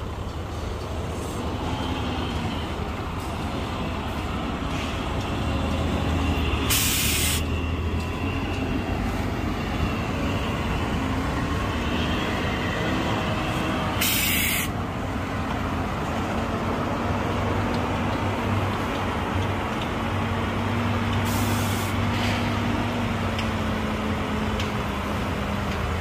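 Heavy diesel engines of dump trucks and earthmoving machinery running steadily. Three short hisses of released air come about seven seconds apart, typical of a truck's air brakes.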